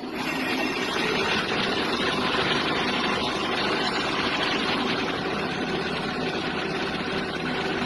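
Brass-cutting lathe running with a steady mechanical noise that steps up sharply at the start and holds even throughout.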